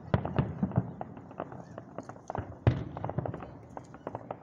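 Aerial fireworks show: a quick run of bangs and crackles from shells bursting, with the loudest single bang nearly three seconds in.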